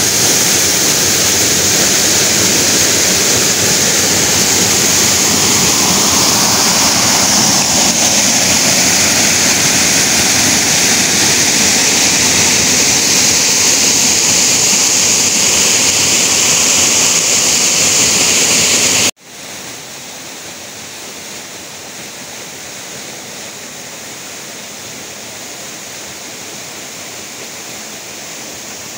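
Waterfall rushing water, a steady loud rush. About two-thirds of the way through it cuts off suddenly and gives way to a quieter, similar rush of falling water.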